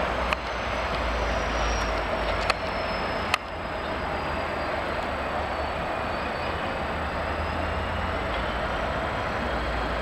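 Passenger trains at a railway station, heard as a steady rumble and hiss. Three sharp clicks fall in the first four seconds, and a faint high whine slowly sinks and then rises again.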